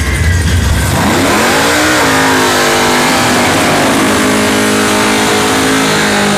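Drag-race car's V8 engine revving up about a second in, then held at high revs through a burnout, with a loud hiss of spinning tyres over it.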